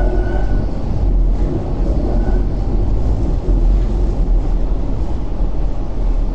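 Hong Kong Light Rail Phase 5 light rail vehicle running at speed, heard from inside the cabin: a steady low rumble of wheels on the track, with a faint high whine briefly near the start.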